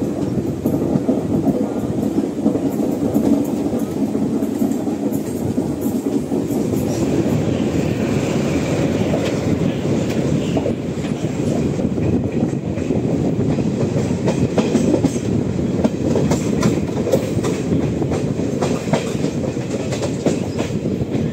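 Garib Rath Express coach running on the rails: a steady low rumble with wheels clacking over rail joints. From about ten seconds in, sharper, more frequent clacks come as the train runs over the points and crossovers of the station approach.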